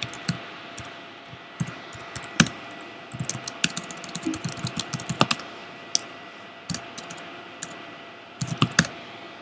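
Typing on a computer keyboard: scattered keystrokes, a quick run of them through the middle and a short cluster near the end.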